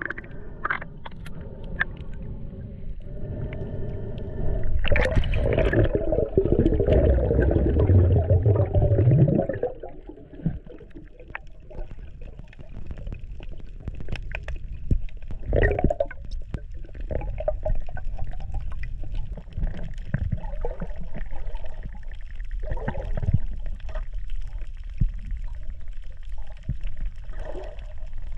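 Underwater sound through an action camera as a freediver swims around a coral head: muffled water rush and bubbling. It is louder for a few seconds about five seconds in, with a tone rising near its end, then drops to a quieter bed with scattered faint clicks.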